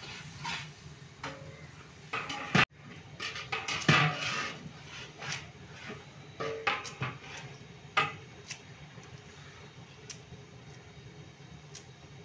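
Large metal cooking pot, its lid and a long metal ladle clanking against each other in a string of sharp knocks, frequent at first and more spaced out after about eight seconds.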